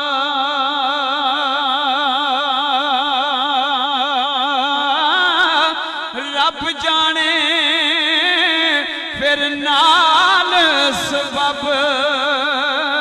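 A man's voice chanting Punjabi Sufi verse in melodic recitation. He holds one long note with a wide, even vibrato for about five seconds, then breaks into wavering, ornamented runs that slide up and down in pitch.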